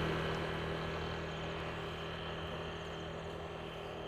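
A road vehicle that has just passed fades slowly away, over a steady low engine hum.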